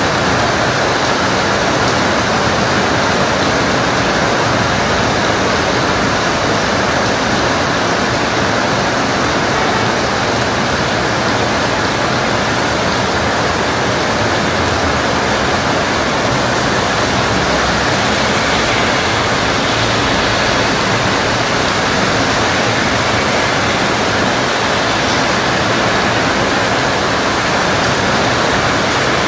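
Heavy rain falling: a steady, dense hiss with no breaks or changes.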